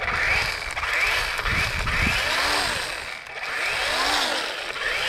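A DeWalt 20V XR 12-inch cordless electric chainsaw running, its motor and chain speeding up and winding down several times as the trigger is worked.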